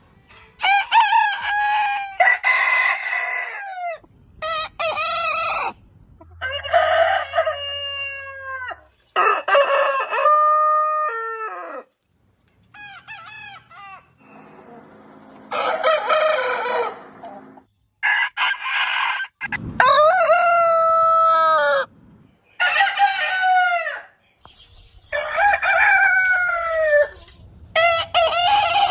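Roosters crowing, about a dozen crows one after another with abrupt cuts between them. Many crows end in a long, drawn-out falling note.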